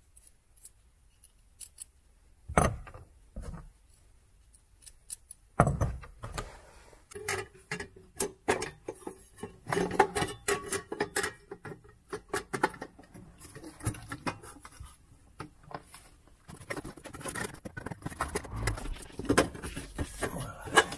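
Workshop handling noise while fitting parts: a few separate knocks, then from about six seconds a long run of small metallic clicks and scrapes. The sources are threaded rods and nuts being handled, and a diesel parking heater on its metal mounting plate being offered up under the van floor.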